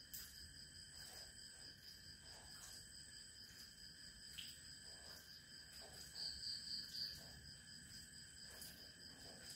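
Faint night insects trilling steadily at several high pitches at once, with a louder pulsing chirp of four beats about six seconds in. Faint scattered ticks sound underneath.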